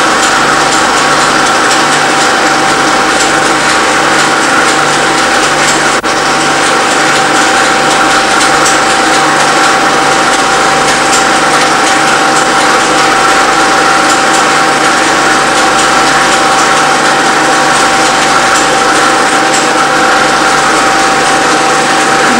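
Home-movie film projector running: a steady mechanical whirr with a constant high whine and a regular low pulse beneath it.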